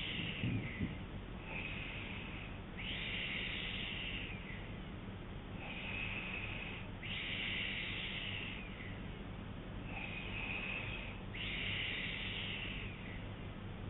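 A man snoring in his sleep, slow and regular, about one breath every four seconds, each with a narrower snore followed by a broader, breathier rush of air. A steady low hum runs underneath.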